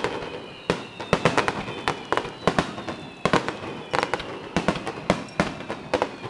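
Aerial fireworks shells bursting: repeated sharp bangs and crackles that come in quick clusters about every second.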